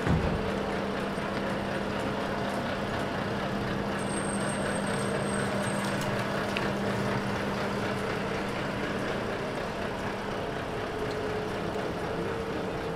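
An engine running steadily with a low hum over city street noise, the hum stopping about ten and a half seconds in; a short thump right at the start.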